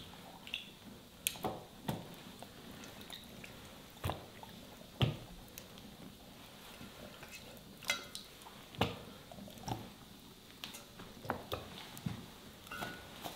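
Irregular light taps, clicks and wet handling noises from raw, plucked quails being arranged and patted dry on a towel-covered table.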